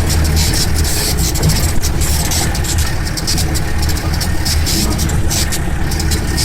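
Jeep engine running under way, a steady low drone with a constant rattly noise over it.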